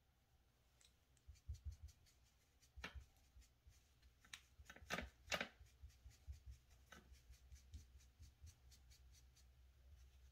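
Faint scattered clicks and taps of makeup being handled, a brush working against an eyeshadow palette. The loudest pair of taps comes around the middle, followed by a run of lighter clicks about three or four a second.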